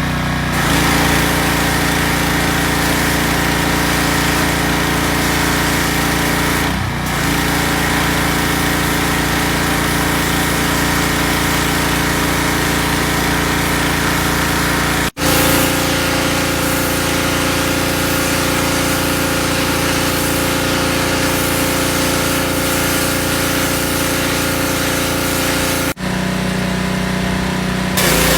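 Pressure washer's small engine running steadily at a constant speed. There are a few abrupt breaks, after which the pitch of the hum shifts slightly.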